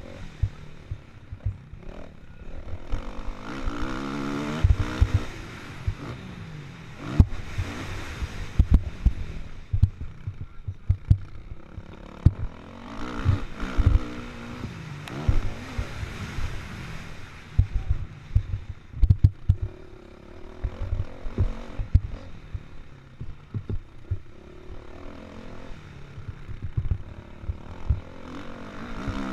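Kawasaki KX450F single-cylinder four-stroke motocross engine revving up and down as the bike is ridden hard, heard from an onboard camera, with frequent short low thumps through it.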